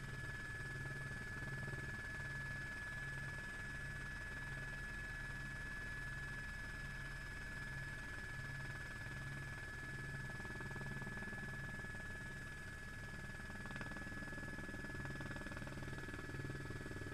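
Helicopter cabin noise, muffled and steady: a low, evenly pulsing throb with a constant high whine above it.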